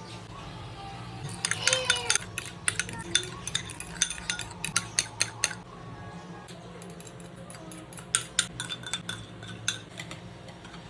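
A metal utensil clinking and scraping against a bowl in two rapid bursts, typical of mixing a cucumber salad. The first burst lasts about four seconds; a shorter one comes about three seconds later.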